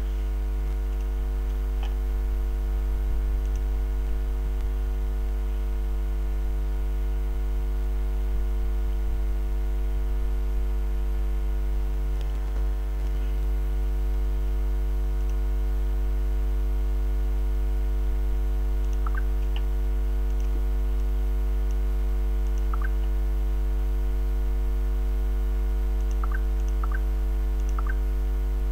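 Steady electrical mains hum from a faulty microphone, a low buzz with a ladder of overtones that does not change. A few faint short clicks sound in the second half.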